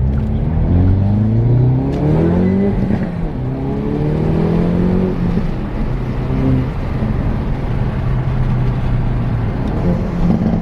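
2021 Kia Forte GT's 1.6-litre turbo four-cylinder accelerating, its pitch rising for about five seconds before settling to a steady cruise. The stock exhaust still has its resonator in place.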